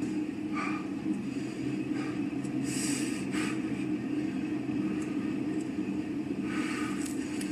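Steady low rumbling drone from a film soundtrack, with a few faint, brief hissy noises over it.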